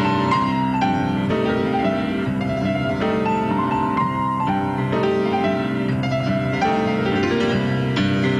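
Solo piano being played: a flowing passage of many notes that ring into one another, without a break.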